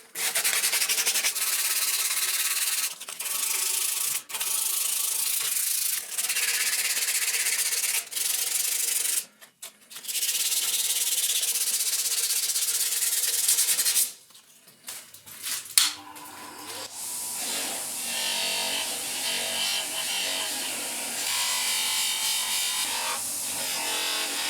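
Abrasive sanding of rusty metal: a steady, hissy rasp with a few short breaks that stops about two-thirds of the way through, followed by quieter, rougher scraping.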